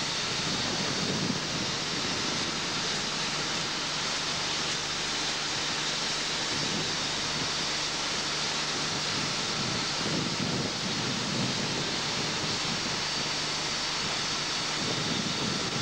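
Steady rush of wind and sea around a fishing boat at sea, with a low steady hum underneath.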